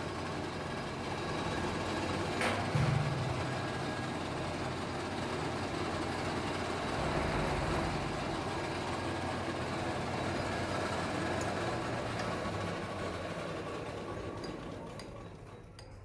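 Lucky Star metal lathe running with a steady mechanical hum, a single knock about two and a half seconds in, then winding down and fading over the last couple of seconds.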